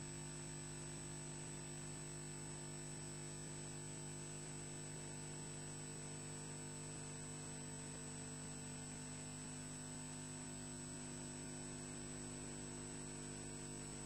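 Steady electrical hum with a thin high whine and hiss from the nest camera's audio line. It does not change, and no bird calls are heard.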